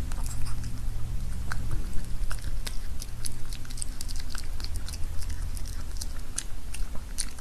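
A pet chewing and crunching food, with many quick irregular crunches over a low steady hum.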